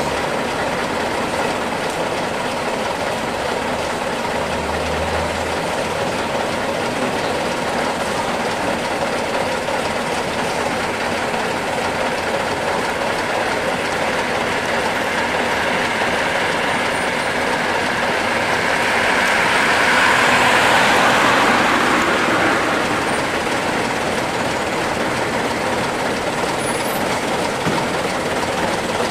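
Vintage AEC double-decker buses' diesel engines running with a steady clatter, swelling louder for a few seconds about twenty seconds in before settling back.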